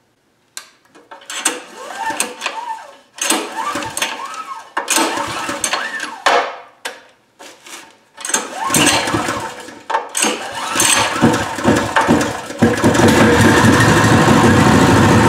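Pro Point 208cc single-cylinder four-stroke OHV engine, new and freshly filled, being pull-started with its recoil starter. There are several rough pulls, then the engine sputters briefly on the later pulls. About thirteen seconds in it catches and settles into a steady run.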